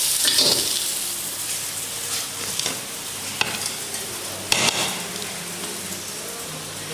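Fried rice sizzling in a hot wok as it is tossed with a metal ladle and spatula; the sizzle is loudest in the first second and then eases off. A few short metal clinks and scrapes, the sharpest about four and a half seconds in.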